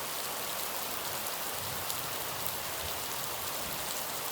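Steady rainfall: an even hiss of rain with scattered individual drops ticking on a surface.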